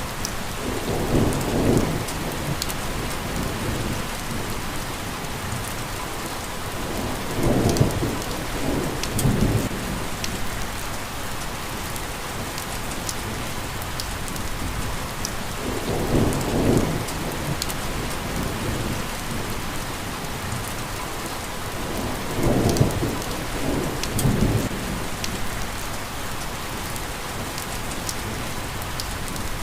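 Steady rain falling in an even hiss, with a brief low rumble swelling up four times, every six to eight seconds.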